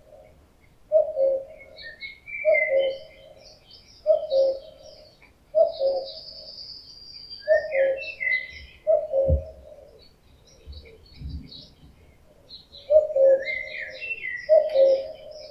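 Male common cuckoo calling its two-note "cu-ckoo", the second note lower, about eight times at roughly one-and-a-half-second intervals, with a pause of a few seconds past the middle. Smaller songbirds chirp faintly and higher in the background.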